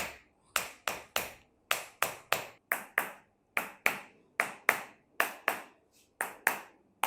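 Chiropractic hammer tapping on a patient's body during percussion treatment. It gives sharp, crisp strikes in quick pairs and triples, about a third of a second apart, with short pauses between the groups.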